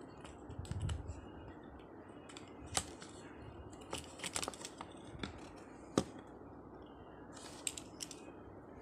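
Cardboard box and plastic tray of a die-cast toy car rustling and snapping as the car is worked out of its packaging, with scattered sharp clicks and a few quick clusters of them.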